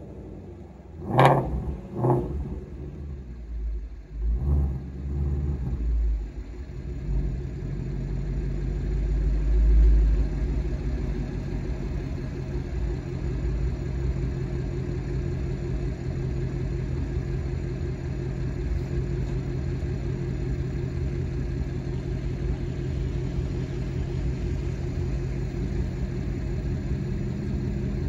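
Shelby Mustang GT350's 5.2-litre flat-plane-crank V8 exhaust: two sharp blips a little over a second and about two seconds in, uneven bursts as the car moves slowly back into the garage, then a steady low rumble at idle.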